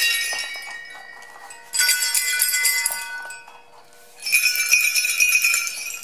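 Antique brass sleigh bells on leather straps, shaken one strap after another: a jingle fading out at the start, then two more short bursts of bright jingling a couple of seconds apart, each ringing on as it dies away.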